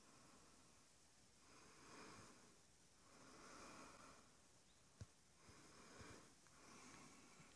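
Near silence, with faint slow breathing close to the microphone, a soft swell every second and a half or so, and one short click about five seconds in.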